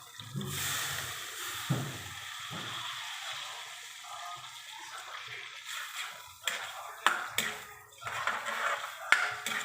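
Water running for several seconds, then several sharp knocks and clatters.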